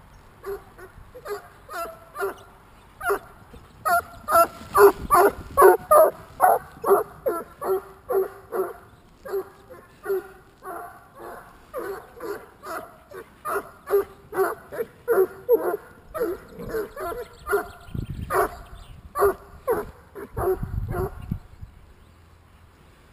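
Bloodhounds howling in a fast run of short, repeated calls, about two or three a second. The calls are loudest in the first half and die away near the end.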